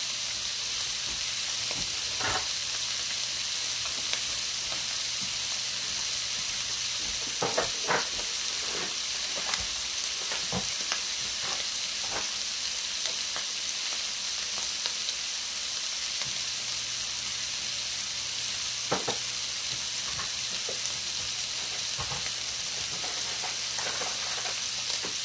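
Food frying in a skillet at the start of a sausage gravy: a steady sizzle, with occasional short clicks and scrapes of a utensil stirring in the pan.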